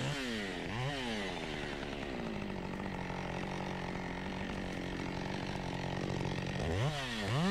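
Husqvarna chainsaw working a log: its engine pitch dips and climbs again about a second in, holds steady under load through the cut, then revs up and drops near the end. The chain is dulling very fast on soil and small stones embedded in the storm-felled wood.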